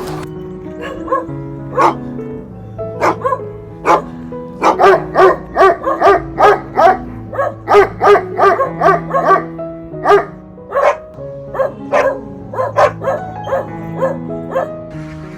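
A dog barking repeatedly in short, sharp barks, coming fastest in a run through the middle, over background music with held notes.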